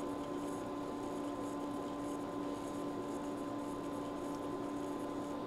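Atari 1050 floppy drive's spindle motor spinning the drive during a rotational speed adjustment, a steady hum with a constant higher whine.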